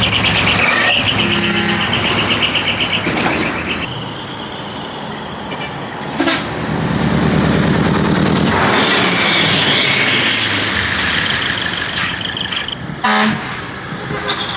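Dekotora (decorated trucks) driving off with engines running, their horns sounding several times in steady held tones.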